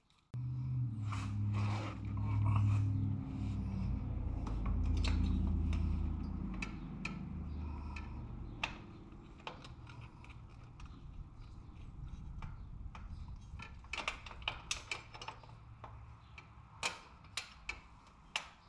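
Hand tools and metal parts clicking and scraping irregularly while a motorcycle's shift linkage is being worked on, the sharp clicks coming thickest in the last few seconds. For the first several seconds a louder low hum that shifts in pitch covers them.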